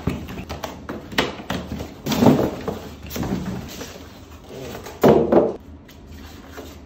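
Handling noise from unpacking a plastic RC excavator: a string of knocks, clicks and rubbing as it is worked out of its foam packaging tray, with louder scraping bursts about two seconds in and near five seconds.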